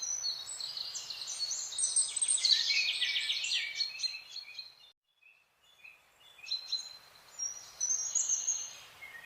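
Songbirds chirping and singing in quick high notes and trills. The song breaks off for about a second a little past the middle, then starts again.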